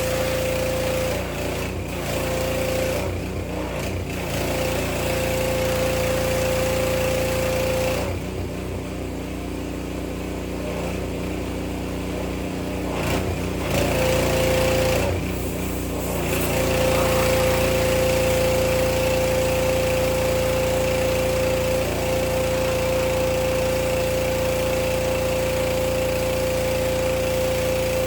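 Gasoline pressure washer engine running steadily. Its even tone breaks up and shifts about a second in and again for several seconds in the middle, then runs evenly again.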